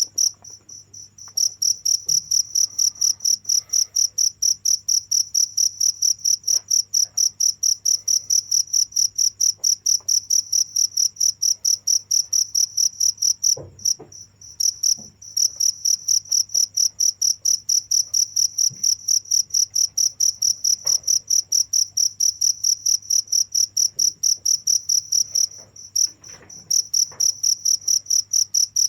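A cricket chirping loudly in a fast, even run of high-pitched pulses, with a few short pauses.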